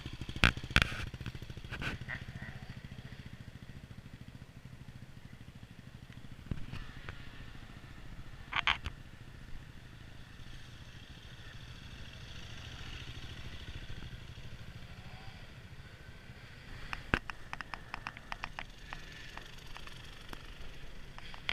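Enduro dirt bikes running at low revs as they come down a muddy descent one after another, a steady low engine drone. Sharp knocks and clatter cut through it, loudest near the start and in a rattling run of clicks about three quarters of the way through.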